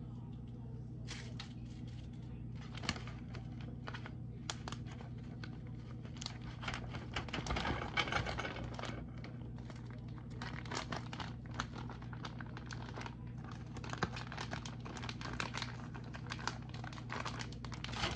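Plastic food packaging being crinkled and torn open by hand, a long run of crackles, densest and loudest in the middle, over a steady low hum.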